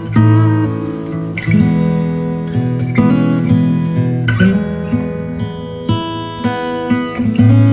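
Background music: strummed acoustic guitar chords, struck about every second and a half.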